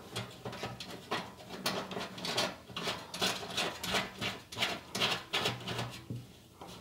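Plastic panel-mount fuse holder being fitted by hand into a UPS case panel, its nut turned on the thread: a run of small plastic clicks and scrapes, a few each second.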